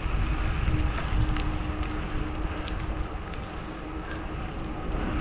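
Wind rumbling on the microphone of a camera riding on a moving bicycle, with tyres rolling on asphalt underneath, a faint steady hum and a few faint ticks.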